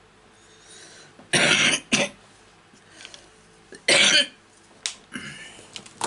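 A woman coughing: a double cough about a second and a half in, another single cough about four seconds in, and a softer throat sound near the end.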